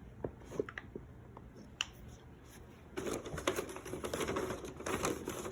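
Fidget toys being rummaged through and handled: scattered small clicks and taps, then from about three seconds in a dense clattering rustle of small objects being moved about.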